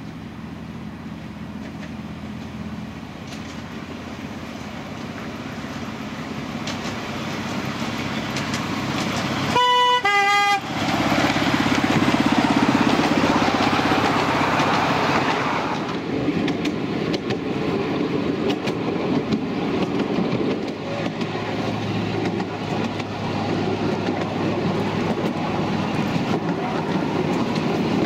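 Miniature railway locomotive's engine running and growing louder as it approaches, sounding two short horn notes about ten seconds in, the second note lower. It passes loudly, and after that comes the steady running noise of the miniature train with wheels clattering on the track.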